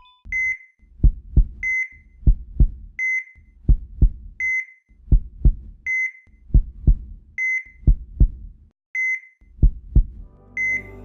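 Patient-monitor beep sounding eight times, about once every one and a half seconds, each beep followed by a double heartbeat thump (lub-dub).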